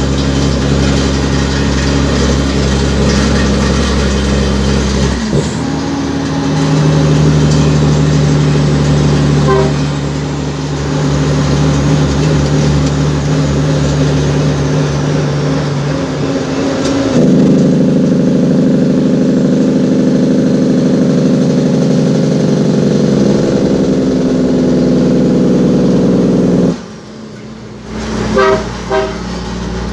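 Cummins N14 diesel truck engine running under way, heard from inside the cab. Its steady note changes abruptly about five seconds in and again around seventeen seconds. The sound falls away sharply a few seconds before the end, followed by a few short sounds.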